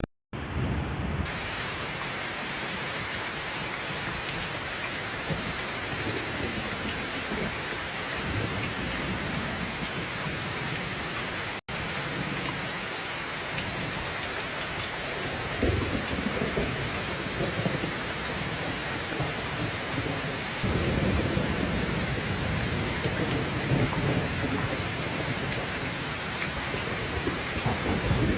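Steady heavy rainfall with low rolling thunder, the rumble swelling and holding on strongly in the last third. The rain cuts out for a split second near the middle.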